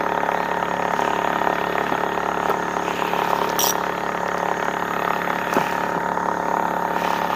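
Small boat engine running steadily at a constant speed, an even hum that does not change.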